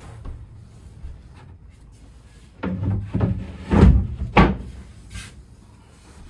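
A quick run of wooden knocks and clunks, loudest near the middle, as timber pieces are handled and fitted into place.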